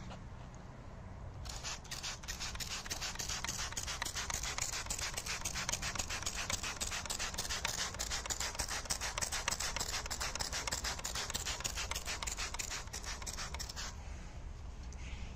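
Fine water spray hitting a waxed, painted test panel, a dense hiss with a rapid crackle of droplets. It starts about a second and a half in and cuts off suddenly near the end, as the water beads off the wax coating.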